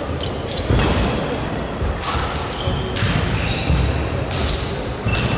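Badminton rally: rackets strike the shuttlecock about once a second, five sharp hits in all, with short squeaks of shoes and footfalls on the court floor between them.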